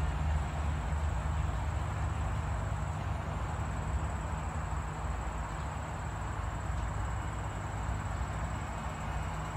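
Steady low mechanical hum with a faint, thin high-pitched whine above it.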